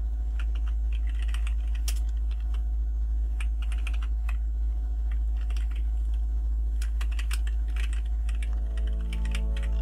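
Typing on a computer keyboard: irregular key clicks, over a steady low hum. Soft background music comes in near the end.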